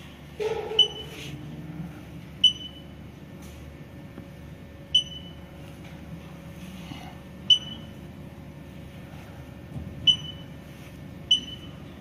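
Short, high electronic beeps from the touchscreen control panel of an Infitek TSP-CV1 tissue processor, six in all at uneven intervals of roughly one to two and a half seconds, as its on-screen buttons are pressed.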